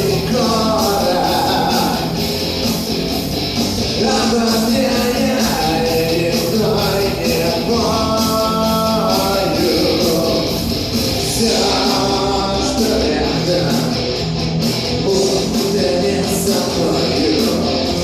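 Rock band playing live with distorted electric guitars, bass and drums, a wordless vocal or lead guitar line wavering over the top.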